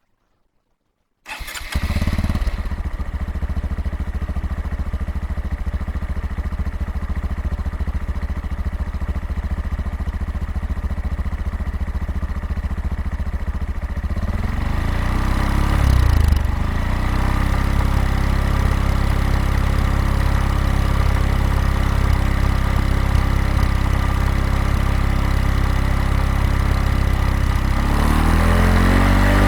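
Honda Monkey 125's single-cylinder engine starting about a second in, then idling steadily through its exhaust. The pitch wavers briefly about fifteen seconds in, and the revs rise near the end.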